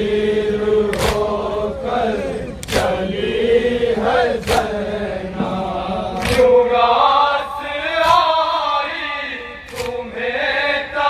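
Male voices chanting a nauha, a mourning lament, in a slow melodic line. A sharp beat falls about every two seconds in time with it.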